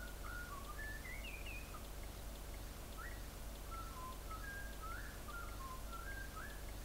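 A bird singing faintly: a run of short whistled notes, some gliding up or down in pitch, over a steady low hum.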